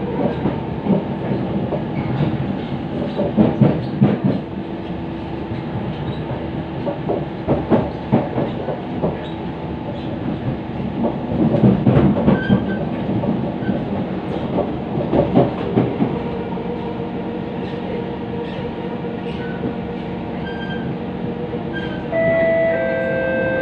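Siemens C651 metro train heard from inside the car while running: a steady rumble from the running gear, with wheels clattering over rail joints in clusters every few seconds. Near the end a few steady tones set in and step down in pitch.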